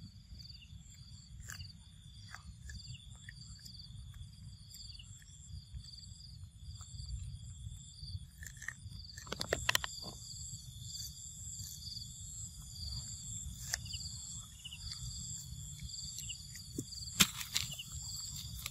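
Insects chirring steadily in several high, slightly pulsing tones over a low rumble, with a few sharp crackles about halfway through and again near the end.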